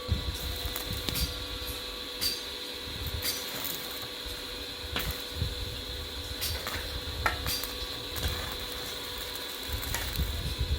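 Electric arc welding on a steel I-beam: a steady electrical hum and hiss with scattered sharp crackles, and a low rumble that comes and goes.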